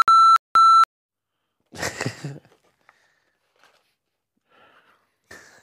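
Censor bleep: a loud electronic beep tone sounded three times in quick succession, masking a word cut off mid-sentence. About two seconds in comes a short breathy vocal burst.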